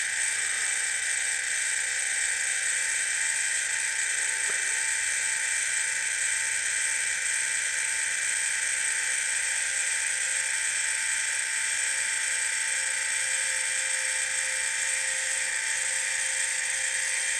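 12-volt electric linear actuator with an 8-inch stroke, its motor and gearbox running steadily under power as it extends, a constant high-pitched whine with a scratchy edge. The noise, which shows up mainly while extending, is taken as a sign that this unit may need replacing.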